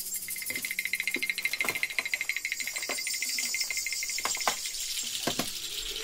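Background music with a fast, even ticking rhythm, with a few short knocks scattered through it.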